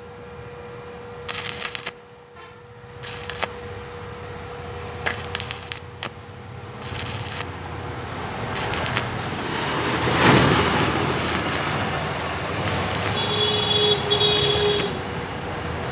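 Stick-welding arc from a coated electrode on steel, crackling and spitting in short bursts at first, then a denser, louder, steady sizzle from about seven seconds in as the root bead is run.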